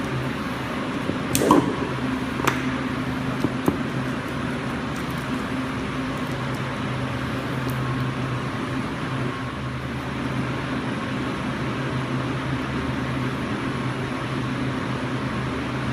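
Steady electric motor hum, with a few sharp knocks in the first few seconds.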